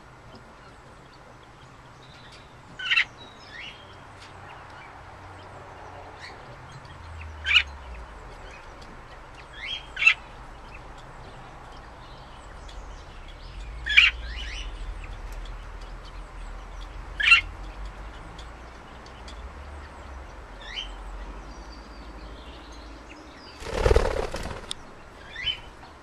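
Budgerigars giving short, sharp chirps every few seconds, about seven in all. Near the end comes a brief flurry of wingbeats as one bird takes off from the perch.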